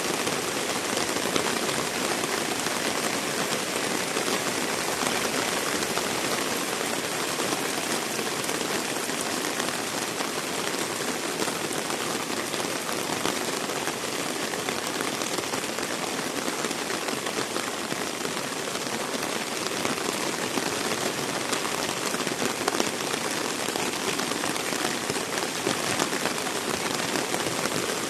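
Heavy rain falling steadily, a dense even hiss of drops pattering on wet surfaces.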